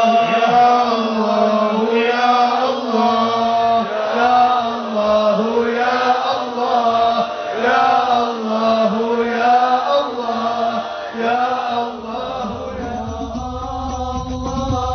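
Male voices chanting a devotional melody that rises and falls over a steady held low note. About twelve seconds in, the chant thins and a low rumble joins it.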